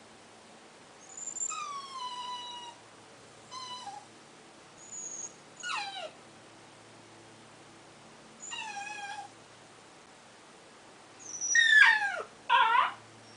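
Dog whimpering: a string of short, high-pitched whines, each sliding down in pitch, with pauses between them; the last two, near the end, are the loudest.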